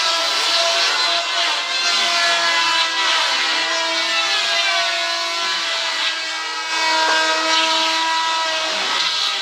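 Electric power tool working wood: a steady motor whine over a rasping cutting hiss, its pitch shifting slightly as the load changes.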